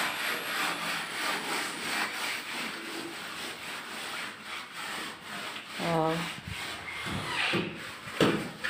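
A mason's trowel scraping over fresh cement render on a concrete ledge in repeated strokes, smoothing the surface.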